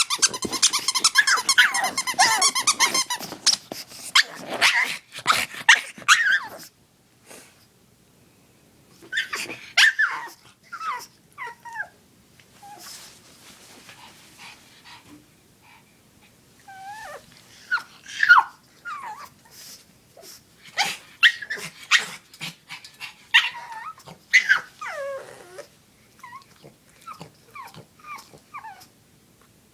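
Pug whining and whimpering for its chew toy: wavering high whines at first, then short falling yelps and whines with quiet pauses between.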